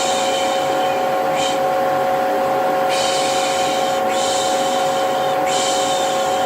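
Vacuum cleaner running steadily with a constant hum, overlaid with repeated 'shh' shushing sounds, several of them, each lasting up to about a second.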